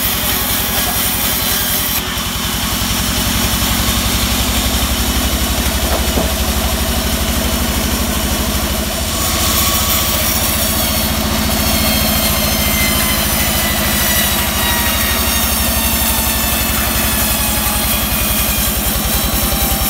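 Band sawmill running as its blade cuts lengthwise through teak: a loud, steady machine drone with a fast, even low pulse. The sound shifts abruptly about 2 and 9 seconds in.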